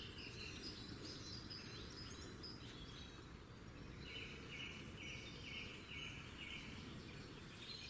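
Birds chirping at several pitches, with one bird repeating a short note about twice a second for a few seconds in the middle, over a faint, steady low rumble.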